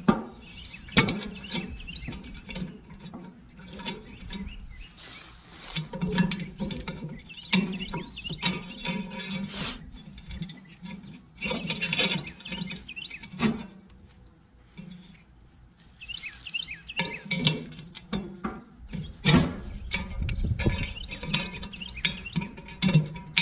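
Pliers and a steel wire bail handle clinking, knocking and scraping against a cast iron Dutch oven in irregular bursts as the bail is worked out of the pot's ears. Birds chirp in the background.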